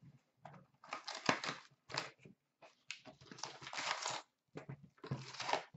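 Foil-wrapped trading card packs and the cardboard hobby box rustling and crinkling as the packs are handled and pulled out, in several irregular bursts.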